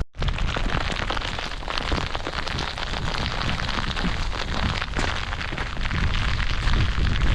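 Strong wind buffeting the microphone, a heavy low rumble with gusts, mixed with heavy rain crackling and hissing.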